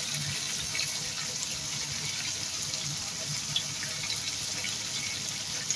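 Chicken, potatoes and carrots simmering over low heat in tomato juices in a pan, a steady sizzling hiss with small crackles.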